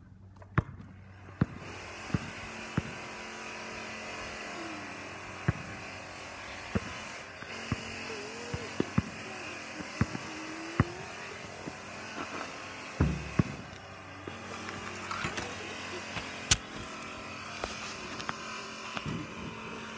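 A basketball bouncing and hitting the hoop on a paved driveway, making sharp single knocks at uneven intervals. Behind them a steady mechanical whine runs on.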